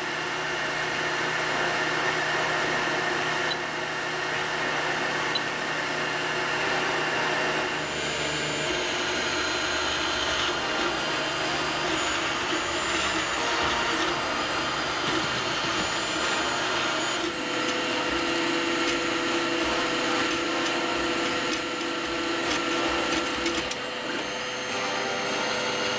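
Anycubic i3 Mega 3D printer running a print: a steady whir of its fans under the whine of the stepper motors, whose tones change pitch every few seconds as the print head switches moves.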